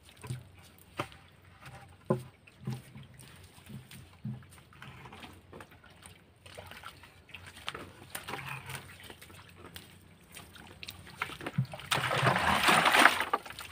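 Faint small splashes and drips in a shallow muddy pool, then, near the end, a loud splashing rush of water for about a second and a half as a plastic bucket of water is sloshed and emptied at the pool's edge.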